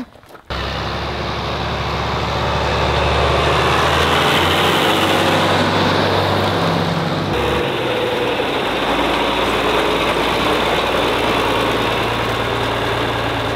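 Green John Deere farm tractor's engine running steadily as the tractor drives along; the engine note shifts about seven seconds in.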